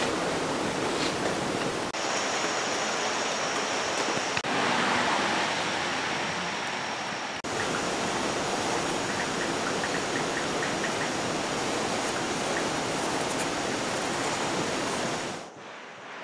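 Steady rushing noise like running water or heavy rain, with small shifts in level at a few points and a drop near the end.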